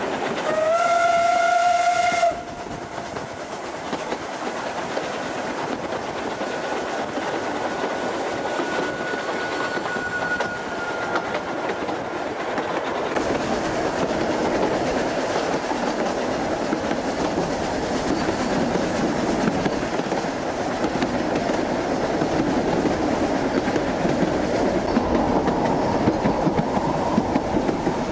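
Narrow-gauge steam locomotive's whistle blowing once for about two seconds near the start, then cutting off sharply. After it come the steady sounds of the train running on the rails, growing a little louder after the middle, with a faint thin whine for a few seconds.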